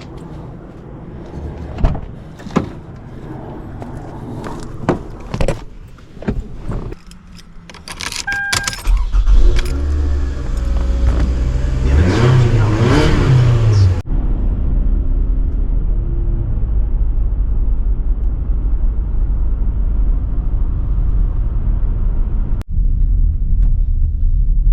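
Keys jangling and several clicks and knocks as a 2009 Toyota Camry is got into, with a short two-tone chime, then the engine starts about nine seconds in and picks up briefly. After that comes a steady low road rumble of the car driving.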